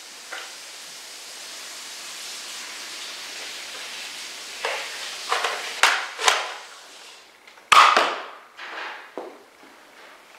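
Several sharp clacks and knocks, the loudest a hard thud about three quarters of the way through, over a steady hiss.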